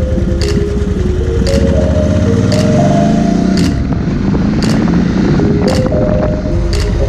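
Background music with a steady beat about once a second plays over a Cagiva 900 Elefant's V-twin engine. The engine rises in pitch as the bike accelerates about two seconds in, then falls away after about four seconds.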